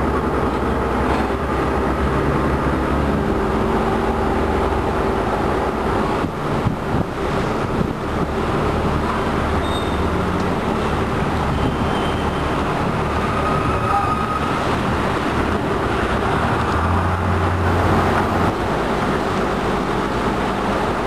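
Motorboat engine running steadily as the boat cruises, a continuous low drone with a rushing noise over it.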